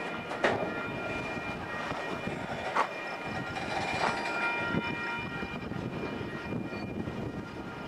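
Intermodal freight train of trailers on flatcars rolling past: a steady rumble of wheels on rail with a steady high ringing over it, broken by four sharp clanks.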